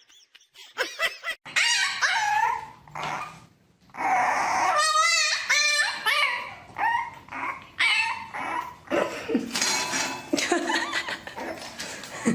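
A dog vocalising in a run of short, high calls that bend and waver in pitch, with brief pauses between them.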